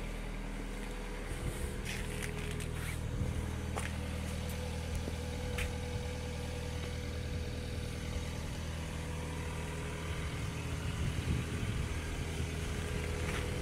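Toyota Auris 1.4 four-cylinder diesel engine idling steadily just after a cold start at −16 °C.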